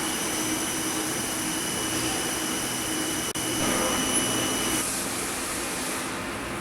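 Correa FP-50/60 CNC bridge milling machine running: a steady mechanical noise with a high-pitched whine that stops about three-quarters of the way through.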